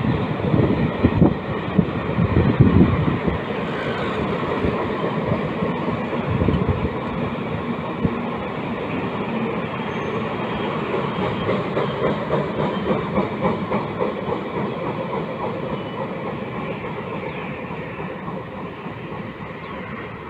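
Military freight train rolling past, its wheels clattering over the rail joints. The rumble is loudest at first and slowly fades as the train moves away.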